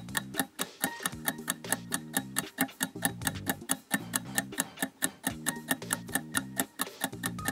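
Countdown timer ticking: a clock-tick sound effect of quick, evenly spaced ticks running under a quiz's shrinking time bar.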